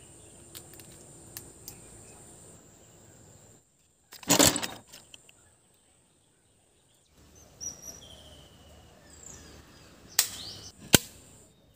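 Homemade bamboo rubber-band toy gun being fired: one loud sharp snap about four seconds in and two shorter sharp clicks near the end, with a few faint bird chirps between.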